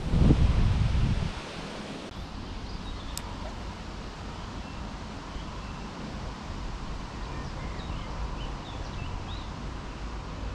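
Wind buffeting the microphone for about the first second, then a steady light breeze with a few faint high chirps and a single sharp click about three seconds in.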